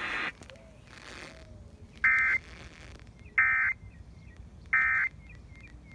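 Emergency Alert System end-of-message signal: three short bursts of SAME digital data tones, about 1.3 seconds apart, marking the close of the alert broadcast.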